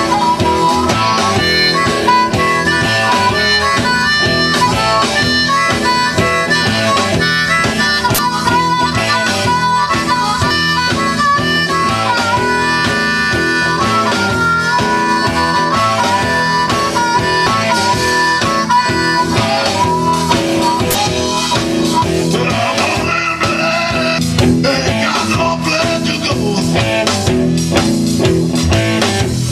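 Live blues-rock band with a harmonica solo, the harmonica played cupped against a hand-held microphone so it comes through amplified, over drums and guitar.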